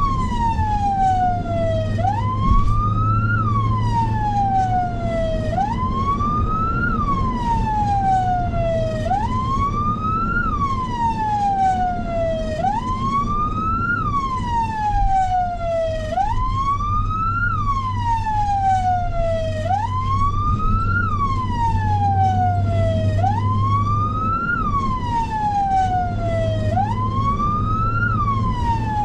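Emergency vehicle siren cycling over and over, each cycle a quick rise in pitch followed by a slower fall, about once every two seconds, over a steady low hum.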